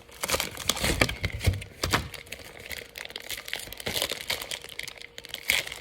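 Plastic bag crinkling and rustling in irregular crackles as sticky glue-like filling is squished into it by hand.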